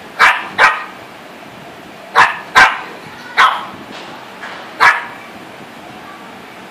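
Small Shih Tzu-type dog barking: six sharp barks, the first four in quick pairs, over about five seconds.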